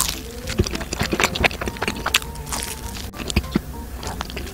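Close-miked sounds of eating a cream-filled chocolate-brownie bagel: many small, irregular clicks and crackles of handling and chewing.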